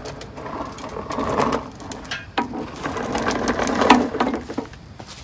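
Plastic wheels of a push lawn mower rolling and rattling over concrete as the mower is pushed and turned, in two stretches with a few clicks.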